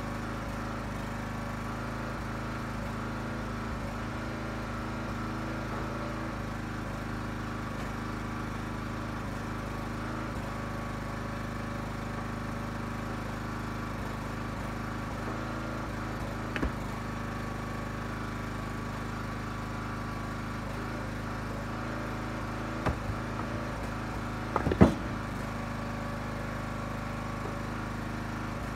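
Small gas engine of a Huskee 35-ton log splitter running steadily at constant speed. A few sharp wooden knocks from the ash blocks are heard over it, the loudest a few seconds before the end.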